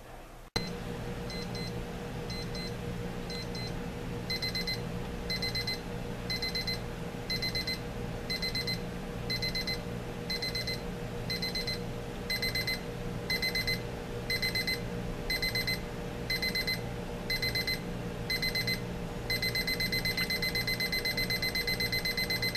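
Digital travel alarm clock's alarm beeping: short bursts of rapid high beeps repeating about once a second, soft at first and louder from about four seconds in. Near the end it changes to continuous rapid beeping, the alarm escalating the longer it runs.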